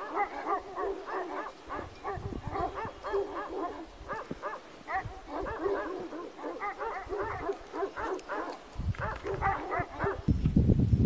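A dog barking over and over in short, high yaps, about three a second. Near the end a loud low rushing noise comes in.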